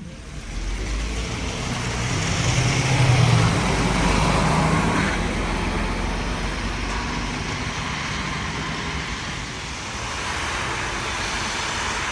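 Road traffic: a motor vehicle passing with engine rumble and tyre noise that swell about three seconds in, then steady road noise.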